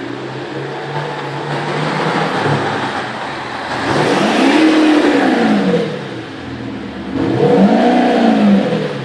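Audi A6 3.0 TDI V6 diesel engine, heard through a retrofitted Eberspächer Active Sound exhaust sound generator, running steadily and then revved twice, its pitch climbing and falling back each time.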